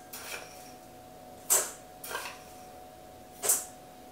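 Metal spoon scooping coarse sea salt from a small glass bowl and tipping it into a stainless-steel mixing bowl. Short scrapes and clinks come about every two seconds, each followed by a softer one.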